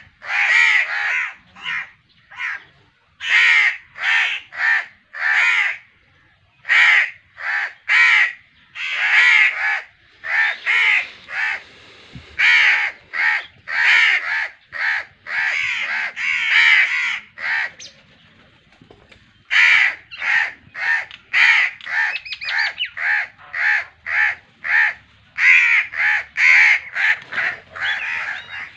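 Crows cawing over and over in quick runs of harsh calls, with a short lull about two-thirds of the way through.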